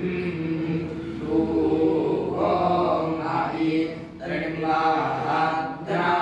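Voice chanting scripture verses in a steady, sing-song recitation (parayana). The phrases are held on a few pitches, with brief breaks about two and four seconds in.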